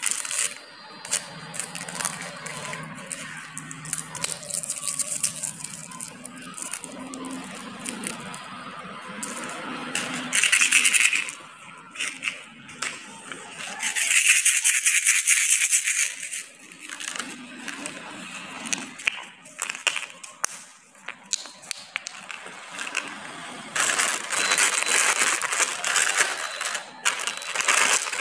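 Plastic snack and candy wrappers crinkling and rustling as they are handled and shuffled about, with several louder bursts of crinkling.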